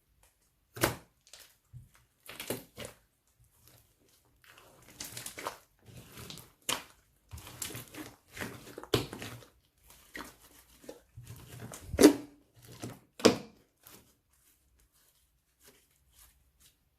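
Slime worked by hand, giving irregular sharp clicks, pops and short crackles, loudest about twelve seconds in; the noises stop at about fourteen seconds.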